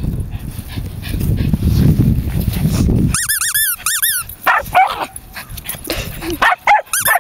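Low rumbling noise for about the first three seconds, then a dog giving quick runs of short, high-pitched yelping calls, each rising and falling in pitch, several a second.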